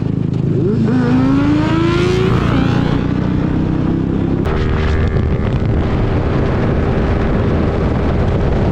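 Yamaha MT-15's 155 cc single-cylinder engine breathing through a Yoshimura Alpha aftermarket exhaust, pulling up with its pitch rising for about a second and a half, then running at steady revs. A single sharp tick comes about four and a half seconds in, over a steady low rumble of wind noise.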